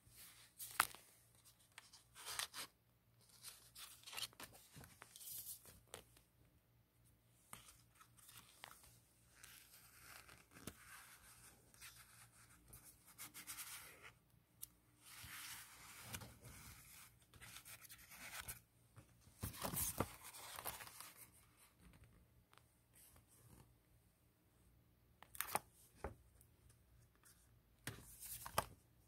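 Stiff paper pages and cardboard pop-up pieces of a pop-up book rustling and swishing as pages are turned and pull tabs worked, in scattered bursts with quiet gaps between them.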